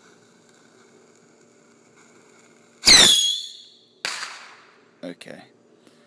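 A small rocket fires from a homemade tube launcher: a sudden shrill whistle about three seconds in falls quickly in pitch and fades within a second. About a second later comes a sharp bang with a short noisy trail.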